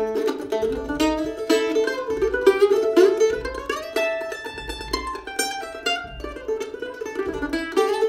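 F-style mandolin played solo, picked in quick, continuous runs of single notes.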